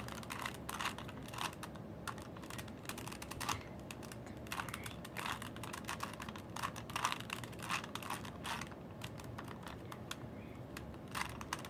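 Rubik's cube being turned quickly by hand: a fast, irregular run of plastic clicks and clacks as the layers snap round.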